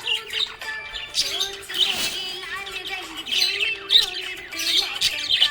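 Budgerigars chirping and warbling in a continuous, busy chatter of quick high notes and short squawks.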